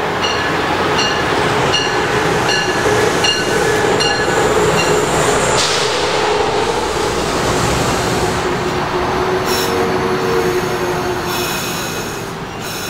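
Amtrak electric passenger train passing close along a station platform, with a steady rushing rumble of wheels on rail. A ringing ding sounds about twice a second until about five seconds in, and a high wheel squeal comes near the end.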